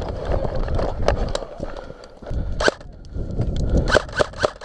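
Airsoft guns firing over the rustle of players moving: a single sharp crack about two and a half seconds in, then a quick string of shots near the end.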